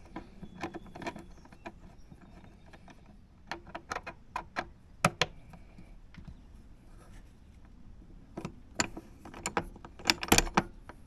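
Scattered metallic clicks and clinks of a hand tool and aluminum hood-latch parts being handled while the latch's pivot bolt is tightened. They come in clusters, the loudest near the end.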